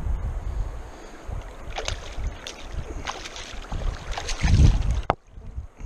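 Hooked fish thrashing at the surface of a shallow river beside the landing net, a series of splashes in quick succession, with wind buffeting the microphone. The sound cuts off suddenly about five seconds in.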